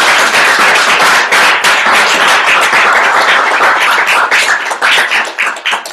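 Small audience applauding at the end of a talk, dense steady clapping that dies away near the end.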